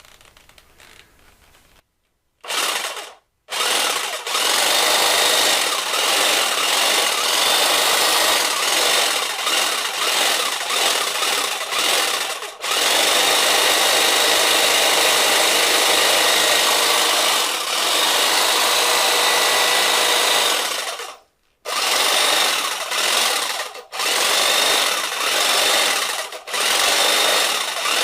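A power tool running in long stretches, a dense steady noise with a high whine, stopping briefly several times.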